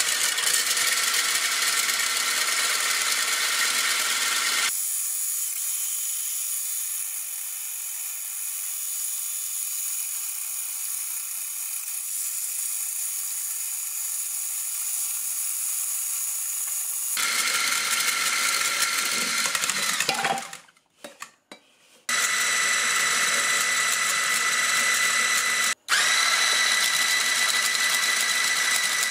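Silvercrest SSMS 600 hand blender motor running steadily on turbo with the whisk attachment, whipping egg yolk as oil is poured in for mayonnaise: a steady high motor whine. The sound thins out for a stretch in the middle and cuts out briefly twice in the last third.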